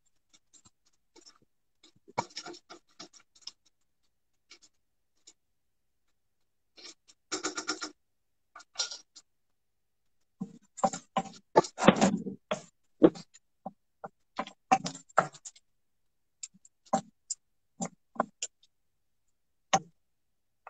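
Irregular clicks and scrapes of a spoon stirring diced onions in a karahi, tapping and scraping against the pan, coming in short runs with a busier stretch in the middle.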